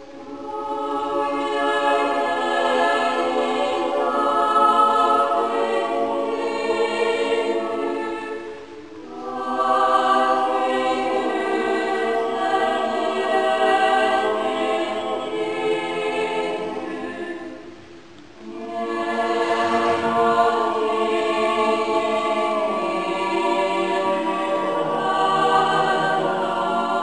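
Small mixed choir of women's and men's voices singing a cappella in sustained chords. The singing comes in three long phrases, with short breaks about nine and eighteen seconds in.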